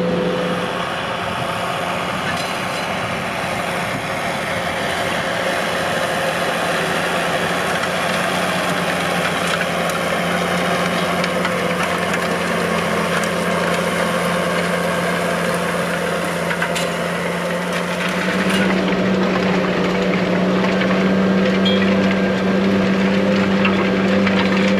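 JCB Fastrac 3220 tractor engine running steadily under load while pulling a harrow across ploughed ground. About eighteen seconds in, the engine note steps up in pitch and gets louder.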